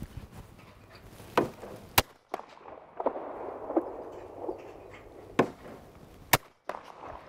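Double-barrelled shotguns firing at clay targets: about five sharp reports at uneven intervals, the last two about a second apart.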